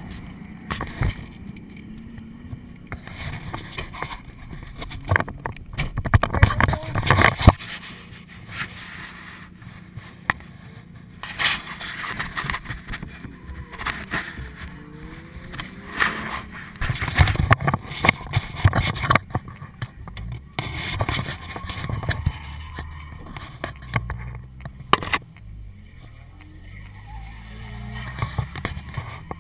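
Action camera being handled and mounted inside a car: irregular knocks, bumps and rubbing on the microphone, over a steady low hum.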